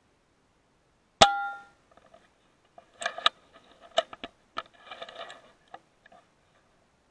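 .177 air rifle firing once about a second in, a sharp crack with a brief metallic ring, followed a couple of seconds later by a run of small clicks and rattles of the action being worked to load the next pellet.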